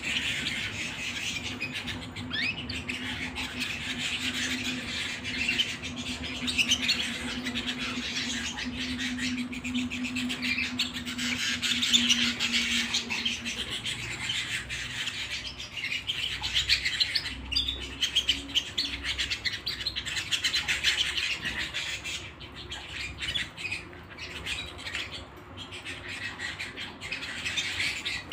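Domestic canary singing continuously, a long run of rapid trills and chirps. A low steady hum runs underneath for the first half and then stops.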